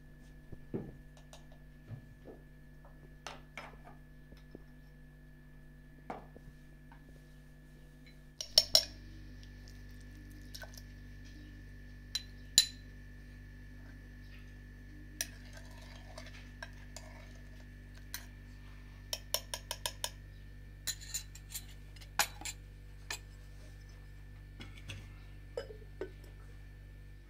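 A spoon clinking against a small glass bowl and the rim of a glazed ceramic pot as ingredients are spooned in: a scatter of short, sharp clinks, some in quick runs, over a steady low hum.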